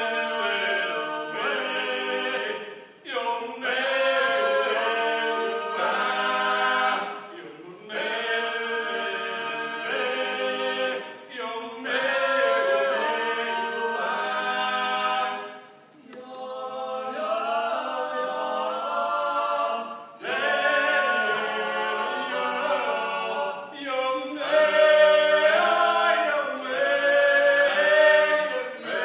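A trio of voices, one woman and two men, singing unaccompanied in close harmony, in held phrases of a few seconds with brief breaks between them.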